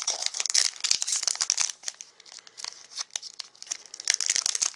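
Foil wrapper of a Magic: The Gathering booster pack being torn open by hand, a dense crinkling and tearing. It goes quieter for a couple of seconds midway, then louder again near the end.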